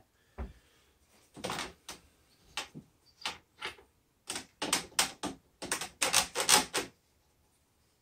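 Bike repair stand's rotating clamp head and the clamped road bike clicking and knocking as the bike is turned round from upside down to upright: one low thump near the start, then a run of irregular clicks that come faster in the second half.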